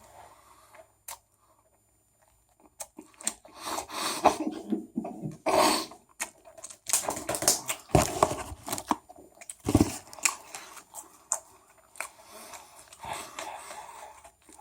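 A person chewing and eating a chicken sandwich close to the microphone, in irregular bursts of chewing and mouth noise with some tearing and crunching, starting about three seconds in after a near-quiet start.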